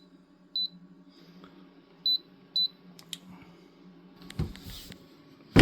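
Bodega fridge freezer's control panel beeping as its temperature buttons are pressed: three short high beeps, over a steady low hum that stops about four seconds in. Near the end come a few clicks and a loud knock.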